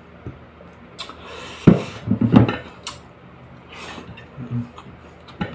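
Plate clinking and knocking in a few sharp, separate hits, the loudest about two seconds in, as rice and fried fish are eaten by hand, with close-up chewing.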